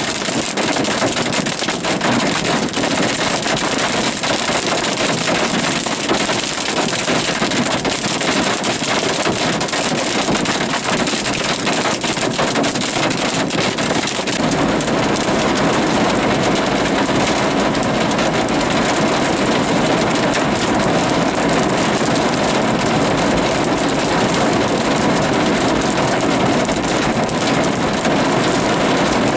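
Heavy rain and hail pelting a car's roof and windshield, a steady loud hiss with no break. About halfway through the sound turns deeper and fuller.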